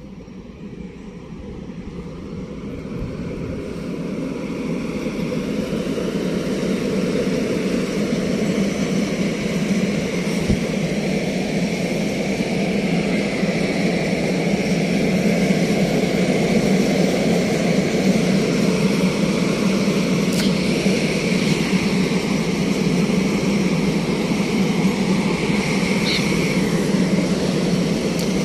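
Train running on the rails, heard from on board: a steady rumble of wheels and running gear that grows louder over the first several seconds as the train picks up speed leaving the station, then holds level.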